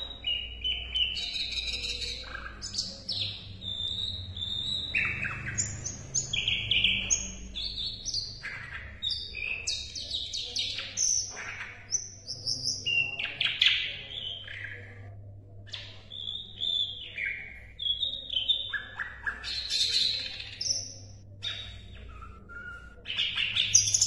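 Caged sikatan londo flycatcher singing: a continuous string of short, varied chirps, whistles and quick trills, with a louder burst near the end.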